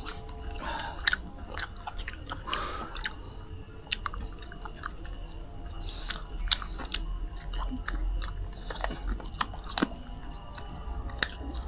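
A person chewing and biting into roast duck close to the microphone, with many small irregular clicks and knocks.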